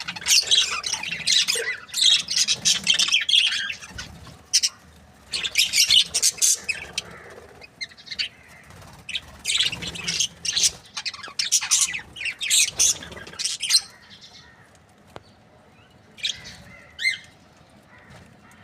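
Budgerigars chirping and chattering in quick, dense bursts, thinning to a few scattered chirps in the last few seconds.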